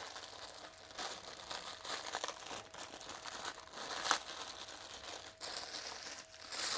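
Plastic packaging wrap crinkling and rustling as a car weather shield is pulled out of it, in irregular bursts with a sharper crackle about four seconds in.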